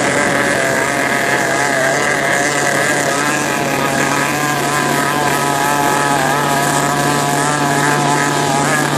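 Motorboat engines running steadily, heard from aboard a boat under way: a low steady hum under a higher, slightly wavering engine whine, with water and wind noise.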